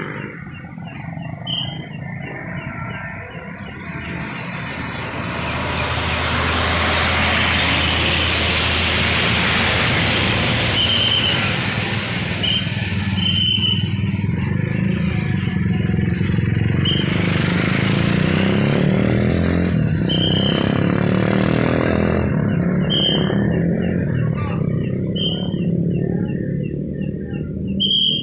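Motorcycles and cars passing through a crossroads on a wet road, engines running and tyres hissing, louder from about five seconds in. Short, repeated high blasts on a traffic whistle are heard on and off over the traffic.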